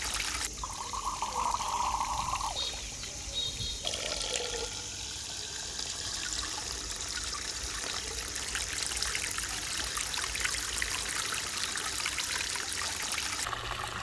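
Water pouring from the spout of a clay jar and splashing steadily into a small pond, a continuous trickle.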